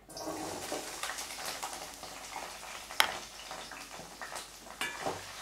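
Cut green beans sizzling and crackling in hot oil in a stainless steel pan, starting as they are tipped in, with one sharp click about three seconds in.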